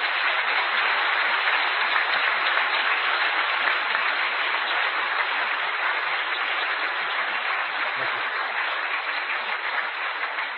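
Audience applauding steadily, welcoming a speaker to the lectern, tapering off slightly near the end.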